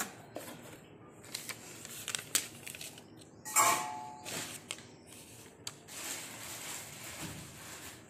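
Paper rustling and crinkling in irregular bursts as a printed receipt and paper packaging are handled and unfolded, with a louder crackle about three and a half seconds in.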